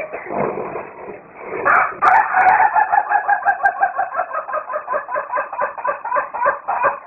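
Rooster crowing: one long crow starting about a second and a half in and lasting about five seconds, with a rapid, even quaver through it.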